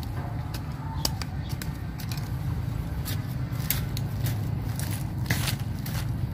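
A knife blade scraping and digging into gravelly, crumbly soil, with irregular sharp scratches and crunches coming several times a second, over a steady low rumble.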